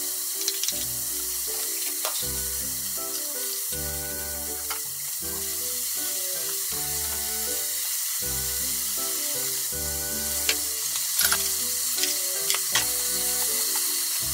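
Sliced mushrooms sizzling in a small square frying pan: a steady frying hiss under background music. A few sharp taps and clicks come in the second half.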